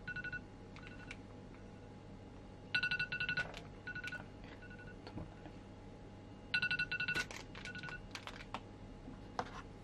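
Timer alarm going off at the end of a one-minute wait: groups of rapid high beeps that repeat about every four seconds, with a few light clicks in between.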